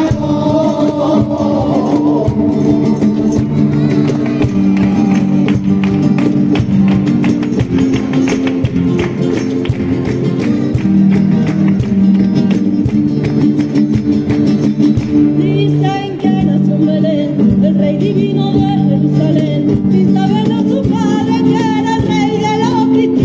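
Two Spanish guitars strummed in a driving flamenco-style rhythm, with hand clapping (palmas) keeping time. Choir voices sing briefly at the start and come back in over the last several seconds.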